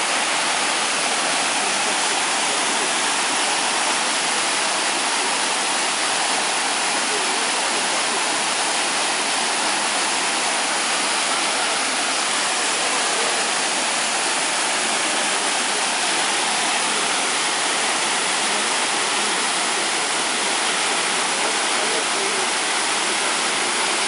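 Waterfall pouring down a rock slab: a steady, loud rush of white water.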